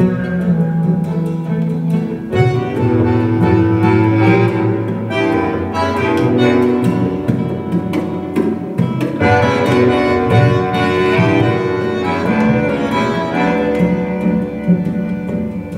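Instrumental music played back over AudioMachina loudspeakers driven by Einstein amplifiers, with sustained low notes under a busier upper line.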